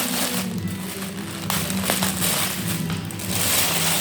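Background music with plastic packaging being crinkled and rustled as a parcel is unpacked, with a few small clicks.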